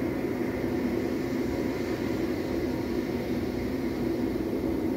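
Ocean surf playing through a television's speaker as a steady, even rushing of water.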